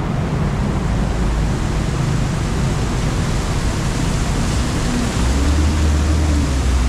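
Steady loud rushing noise of city street traffic, with a deep rumble that swells about five seconds in.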